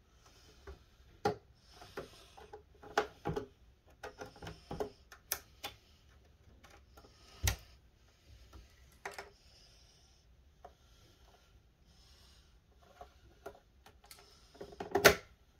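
Irregular clicks, taps and light knocks from the plastic casing and parts of an Xbox Series X being handled during disassembly, with a heavier knock about halfway through and a louder clatter of clicks near the end.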